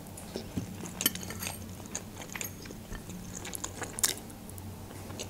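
Close-miked eating sounds of someone chewing plov (rice pilaf) taken off a fork: soft chewing and mouth clicks, with sharper clicks about a second in and again near four seconds.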